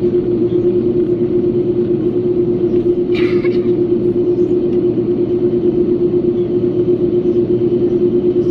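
Cabin noise inside an Airbus A330-200 as it taxis: the jet engines' steady drone with one strong low hum. A brief higher-pitched sound comes about three seconds in.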